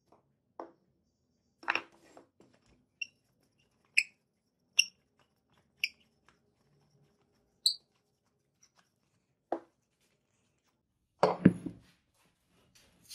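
Scattered handling knocks and taps of a hatchet with a cast brass handle and wooden handle blank against a concrete floor, with several short high-pitched clicks between them. The loudest is a quick cluster of knocks near the end as the hatchet is set down.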